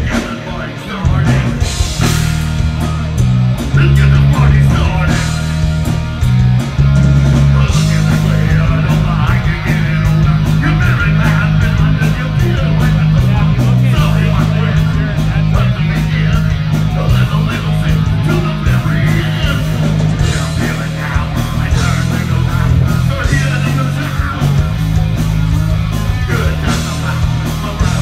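Live rock band playing a song at full volume: electric guitar over a drum kit.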